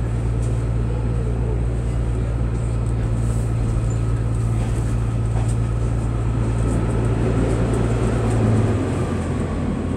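Class 142 Pacer diesel railbus heard from inside the passenger saloon while running: a steady low engine and running drone. It swells slightly and then drops away near the end.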